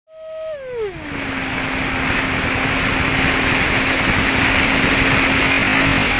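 Electric ducted-fan motor of a radio-controlled F-22 model jet running with a loud rushing hiss. Its pitched tone drops over the first second, then holds steady while the hiss builds.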